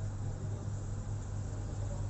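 Steady low hum under a faint even hiss, unchanging throughout.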